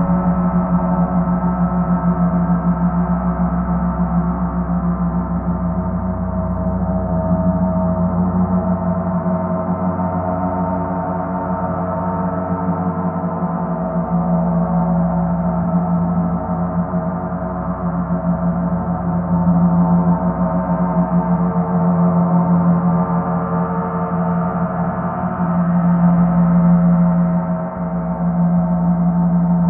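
Paiste planetary gongs played as a continuous, sustained wash of many overlapping ringing tones, with no single strike standing out. The sound swells louder about twenty seconds in and again near twenty-six seconds.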